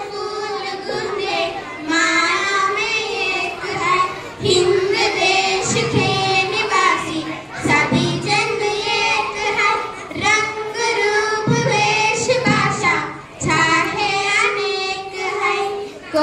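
Girls singing a song together into corded hand-held microphones, in long held notes with short breaks between phrases.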